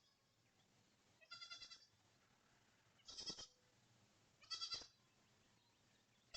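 Goat bleating three times, short wavering calls about a second and a half apart, with another starting near the end.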